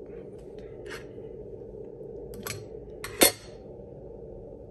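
Light clicks and taps of a small hand tool and fingers against a MacBook Pro butterfly keyboard, with one sharp, louder click about three seconds in.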